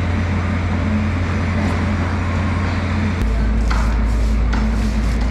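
Steady low machine drone with a constant hum, like a motor running nearby. Over it, a few short scraping strokes of a knife on the fish come about three and a half to four and a half seconds in.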